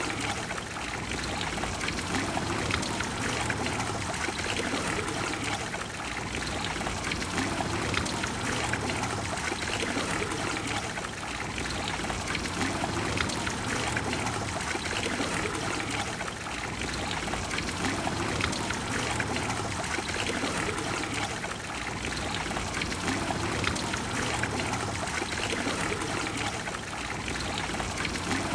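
Water of the Trevi Fountain flowing and falling, a steady, unbroken rush.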